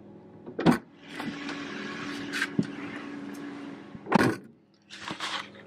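A person climbing into a car's driver seat: a thump shortly after the start, rustling of clothes and seat as they settle in, then the car door thudding shut about four seconds in.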